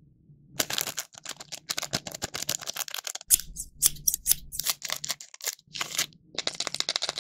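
Thin plastic wrapper of a Kabayaki-san Taro snack crinkling as it is handled and cut open with scissors: a quick run of crackly clicks and snips, with a denser burst of crinkling near the end.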